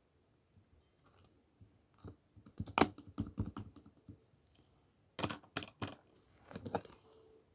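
Irregular quick clicks and taps in two flurries, starting about two seconds in and again about five seconds in.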